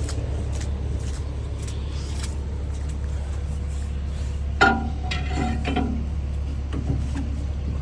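Steel tools and parts striking each other: one sharp metallic clank about four and a half seconds in that rings briefly, then a few lighter clinks. A machine's engine runs at a steady low hum underneath.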